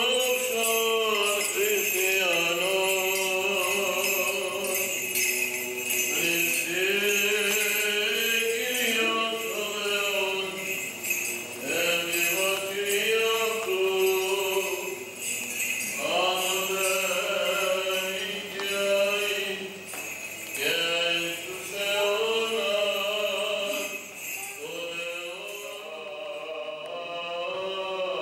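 Male Byzantine chant sung in slow, drawn-out phrases, with small bells jingling steadily under it, typical of an Orthodox censer being swung.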